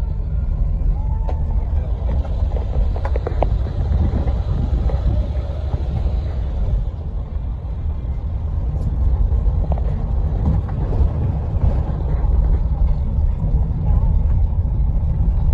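Steady low rumble, with a few faint knocks and clicks in the first few seconds.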